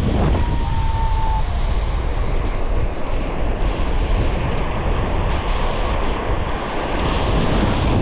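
Small waves breaking and washing up the sand in a steady rush, with wind rumbling on the microphone.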